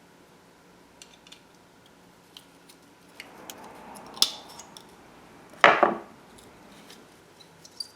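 Brake pads and a thin metal backing plate being handled by hand: scattered light clicks and clinks, a short rubbing sound, and one louder scrape about two-thirds of the way through, as the aluminum backing is worked off the old pad and onto a new one.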